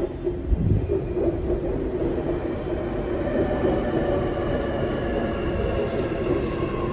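Sydney Metro train pulling into the platform, its wheels rumbling steadily. From about halfway through, its motors give a whine that slowly falls in pitch as it brakes to a stop.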